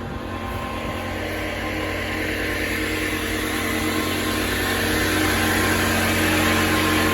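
Construction-site machinery running: a steady engine-like hum with a hiss that grows gradually louder.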